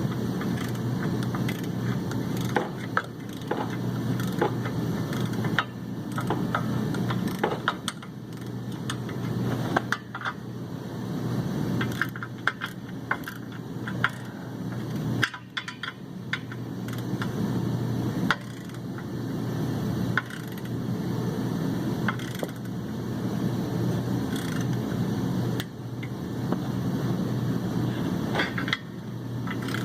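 Ratcheting torque wrench tightening clutch pressure plate bolts set to 20 foot-pounds, the ratchet clicking in repeated runs of a couple of seconds each, over a steady low hum.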